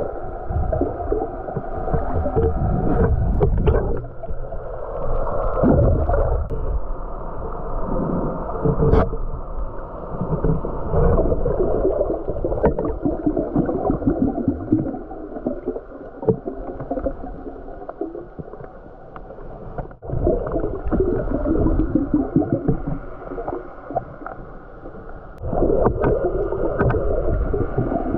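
Muffled underwater water noise, sloshing and gurgling as a free diver swims, swelling and fading irregularly with a few faint clicks.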